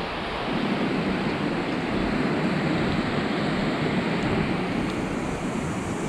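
Steady, flickering rushing noise of wind buffeting the camera's microphone outdoors.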